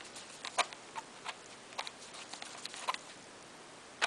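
A screwdriver turning a steel screw into a wooden rifle stock: a string of light, irregular clicks and ticks of the tool's bit on the screw head.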